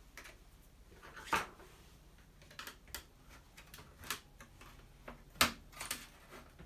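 Scattered clicks and knocks of hard plastic and metal parts and a screwdriver being handled while a flatscreen TV is taken apart, with two louder knocks about a second and a half in and again past five seconds.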